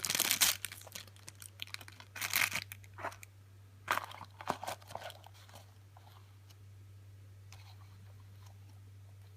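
Plastic packaging crinkling and tearing in several short bursts over the first five seconds as a pocket knife is unwrapped, followed by a few faint light clicks.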